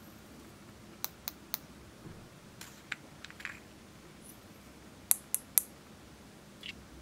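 Small plastic glitter jars being handled and tapped while glitter is sprinkled out: scattered sharp clicks, with three quick, louder clicks about five seconds in.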